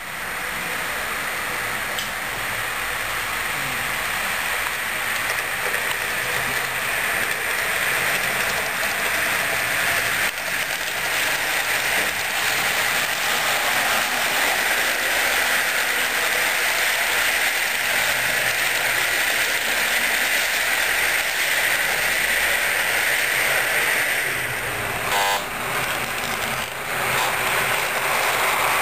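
Steady rolling hiss and rumble of a running train, growing slightly louder, with one short horn toot a few seconds before the end.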